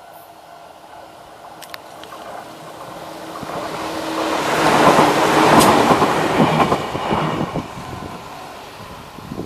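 Enshu Railway electric commuter train passing over a level crossing: it grows louder to a peak about five to six seconds in, wheels clacking over the rail joints, then fades as it moves away.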